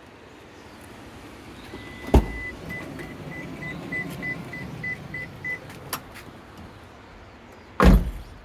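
Kei car door opening and shutting: a heavy thud, then a high warning beep that turns into a quick run of short beeps, about three a second, for around three seconds. A click follows, then a second heavy thud near the end as the door shuts.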